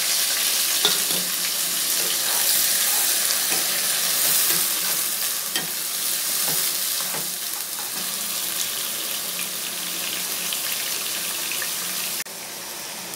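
Carrot and green-bean strips sizzling in hot ghee and oil in a nonstick kadai, stirred with a wooden spatula that scrapes and taps the pan now and then. The vegetables are freshly added, and the sizzle eases gradually, then drops suddenly near the end.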